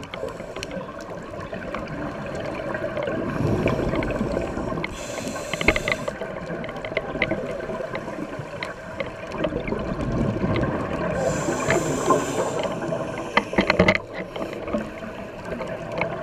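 Scuba diver breathing through a regulator, heard underwater through the camera housing. A hiss of inhalation comes twice, about six seconds apart, and between them is the gurgle of exhaled bubbles, with scattered small clicks.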